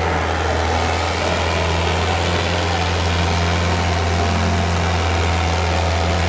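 Diesel tractor engines running steadily, a loud, even low drone with no change in pitch.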